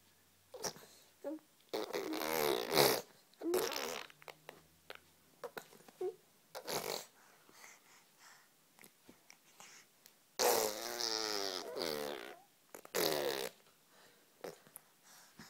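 Baby girl vocalising: a string of drawn-out, buzzy voiced noises with short pauses between them. The longest, about two seconds, comes about two-thirds of the way in.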